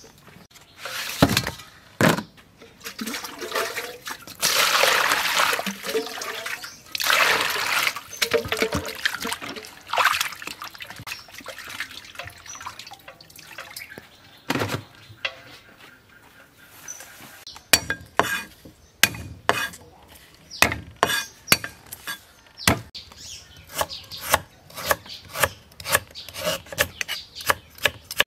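Water pouring and splashing in several bursts as fish are rinsed in a plastic colander and bowl. Later on this gives way to a knife chopping on a wooden cutting board in quick, regular strokes.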